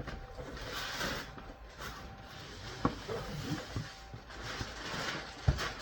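Cardboard box being handled and turned over, rustling, with two sharp knocks against it, the louder one near the end.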